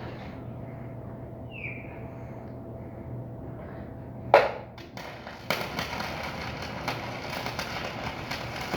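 Electric arc welding: a steady hum, then a sharp strike about four seconds in, and from about five and a half seconds the dense, even crackle of a running arc.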